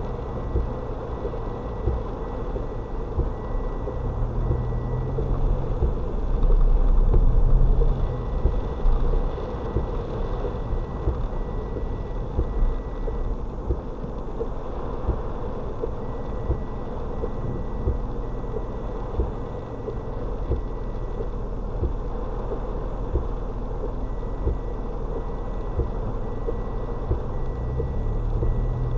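Cabin sound of a Mitsubishi Mirage driving through heavy rain and standing floodwater: a steady rumble of road, water and engine noise, swelling louder for a couple of seconds about a quarter of the way in. A faint high-pitched beep repeats in runs of several seconds throughout.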